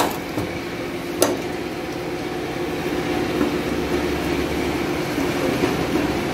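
Two sharp metallic clicks from a Mitsubishi L300 pickup's rear tailgate latch being worked by hand, the second about a second in, over a steady mechanical drone.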